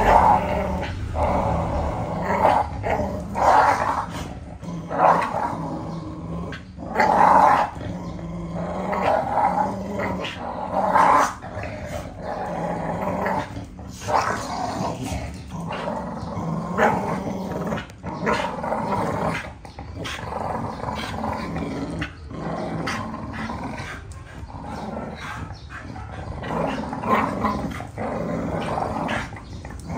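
American bully dogs growling in play as they pull against each other in a tug of war over a chew stick; the growling runs on continuously, swelling and easing in irregular surges.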